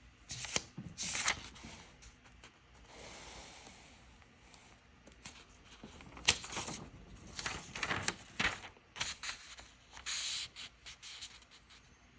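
Notebook pages being turned and handled: a series of short paper rustles and scuffs, with a longer soft rustle about three seconds in.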